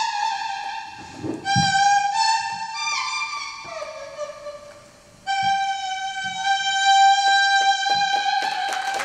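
Pulpiri, a Korean leaf whistle blown on a leaf held to the lips, playing a slow melody of held notes that slide into pitch, closing on one long held note. Audience applause breaks in near the end.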